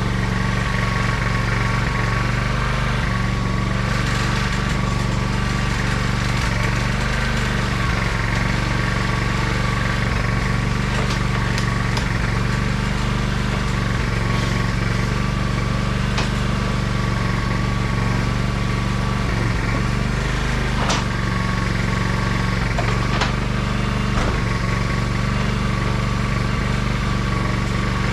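Generator engine running steadily at an even speed, with a few sharp clicks and knocks scattered through it.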